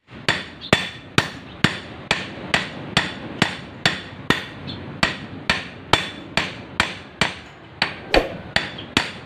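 A small hammer strikes a strip of stainless steel in a steady rhythm of about two blows a second, each blow a sharp knock with a short metallic ring. This is hand-flattening the steel into a liwit-liwit spoon lure.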